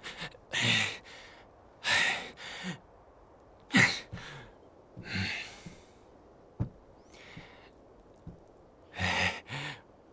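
A person sighing and huffing: a series of short, breathy exhalations, some coming in pairs, with a single sharp click about two-thirds of the way through.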